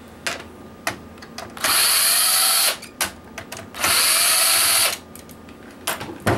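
Cordless drill/driver backing out the screws of a PlayStation 3 heatsink clamp in two bursts of about a second each, the motor winding up and down each time, with light clicks of handling in between.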